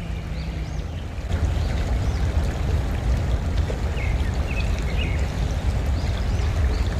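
Small mountain creek flowing, a steady rushing of water with a deep rumble underneath, louder from about a second in. A few faint high chirps come and go over it.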